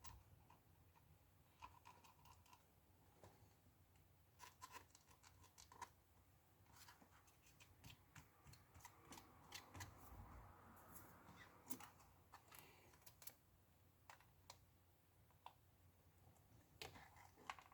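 Near silence with faint scattered clicks, taps and a light scratching, small handling noises of iPad repair parts being worked by hand.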